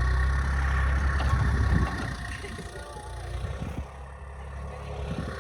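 Mini excavator engine running with a steady whine. About two seconds in it drops to a lower level, and a few clunks sound as the machine works.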